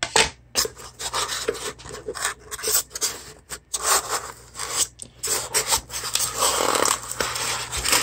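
White packing foam blocks and bamboo separators rubbing and scraping against the inside of a bamboo box as they are worked loose and pulled out by hand. An irregular run of scrapes and light knocks, with a longer scrape about six to seven seconds in.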